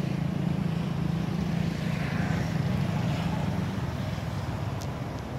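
A motor vehicle engine running with a steady low hum, fading away over the last couple of seconds.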